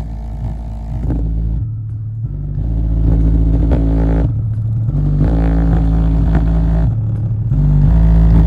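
Aiwa 5.25-inch woofer in a small cardboard box playing loud, distorted bass tones that step to a new pitch every second or so. The cardboard box vibrates and buzzes along with it.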